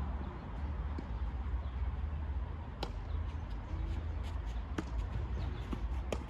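Tennis rally: sharp pops of rackets striking the ball and the ball bouncing on the court, a hit every second or two, over a steady low rumble.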